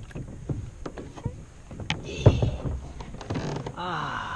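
Kayak paddling: a paddle knocking against a plastic kayak hull and splashing through the water, with a drawn-out creaking squeak near the end.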